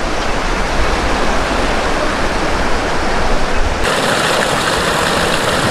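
Steady rush of running water. About four seconds in it changes to a closer, brighter gush of water pouring out of a pipe outlet onto rocks in a shallow stream.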